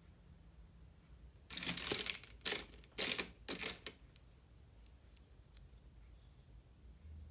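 Chocolate packaging being torn open by hand in four short rips, starting about a second and a half in, followed by a few faint ticks.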